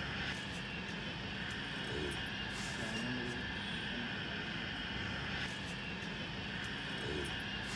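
Steady indoor ambience of a large cinema lobby: a constant hum and hiss, with faint distant voices now and then.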